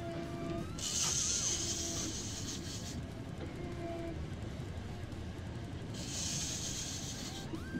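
Steady rumble of the boat's outboard motor and wind under background electric-guitar music with bent, wavering notes. A high hiss comes in twice, about a second in and again near the end.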